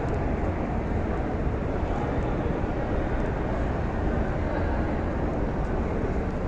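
Steady, indistinct crowd noise from many pilgrims walking through a large marble hall, with a heavy low rumble underneath.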